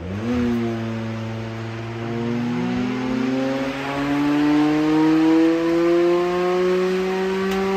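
Retrotec Model 5000 blower door fan starting and speeding up, its hum rising steadily in pitch. It is depressurizing the building toward 50 pascals for an air-leakage (CFM50) test.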